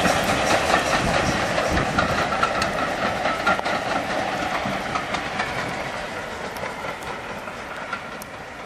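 Heritage passenger train's coaches rolling past on the rails, with wheels clicking over the rail joints. The sound fades steadily as the rear coach passes and the train draws away.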